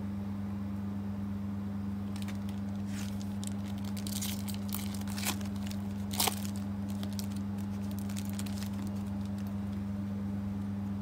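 Foil trading-card pack wrapper being handled and torn open: crisp crinkling and tearing from about two seconds in, loudest around the middle, then tailing off. A steady low electrical hum lies under it.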